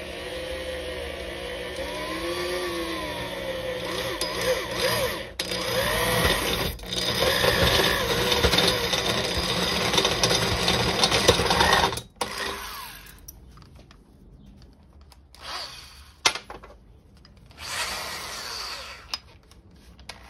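Corded DeWalt drill with a step drill bit cutting a hole into an aluminium charge pipe, its motor whine wavering as the speed changes. It runs steadily for about twelve seconds with two brief pauses, then stops; a few short, quieter bursts follow near the end.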